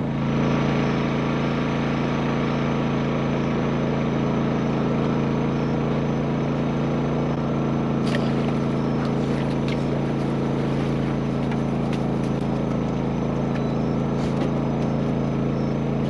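Steady, unchanging motor hum aboard a bowfishing boat, running through the whole stretch. A few brief sharp clicks stand out over it, the first about eight seconds in, around when an arrow is shot into the water.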